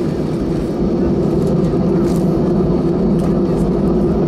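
Airbus A319 jet engines and cabin noise heard from inside the passenger cabin while the plane taxis: a steady, loud drone that gets a little louder about a second in.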